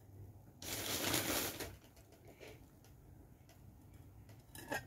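Crinkling of a sheet of wrapping as it is handled, a burst about a second long, followed by quiet handling and a brief faint rustle near the end.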